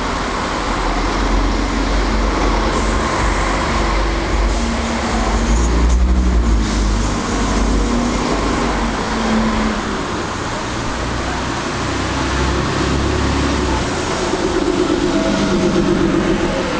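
Engines of vintage buses in a parade driving past, a heavy low rumble that swells as each bus goes by, loudest about six seconds in and again near the end.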